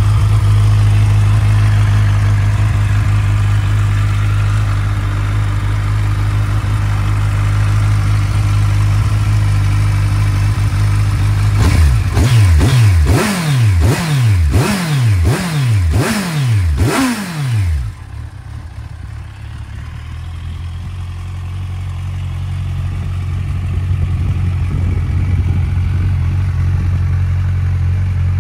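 2013 Kawasaki Ninja 1000's inline-four engine idling steadily through an aftermarket Trickstar slip-on muffler. About twelve seconds in it is revved in a quick run of about six throttle blips, each rising and falling in pitch, then drops back to a steady idle.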